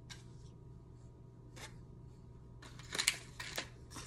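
Light rustling and handling of small items from a press-on nail kit and their packaging: a few short crinkles, then a busier patch of crinkling and scraping about three seconds in.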